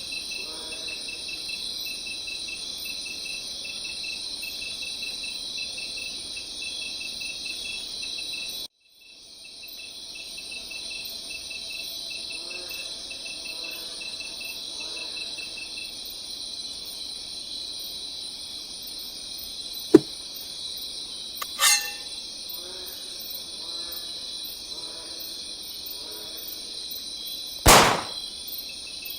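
Crickets chirping in a steady, high, pulsing chorus. The chorus drops out abruptly for about a second near 9 s. Three sharp clicks or knocks cut through it later, the last and loudest near the end.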